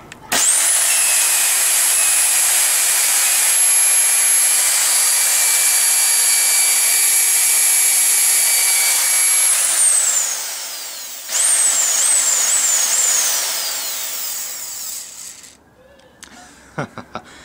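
1.7 kW electric lawnmower motor, run bare on its belt-pulley housing, switched on: it spins up at once to a loud, steady high whine and runs for about nine seconds, then is switched off and winds down with falling pitch. Switched on again, it is blipped several times, the whine briefly rising and falling with each, before it runs down.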